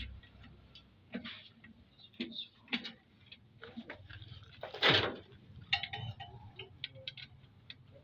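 Scattered clicks and knocks of metal engine parts and tools being handled, with one louder knock about five seconds in.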